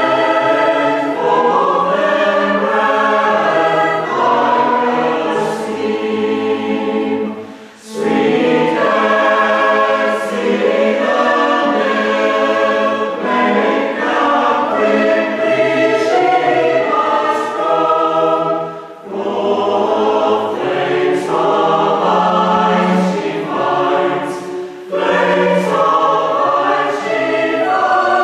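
Mixed West Gallery choir singing a carol, accompanied by a cello and other strings. The phrases break off briefly three times.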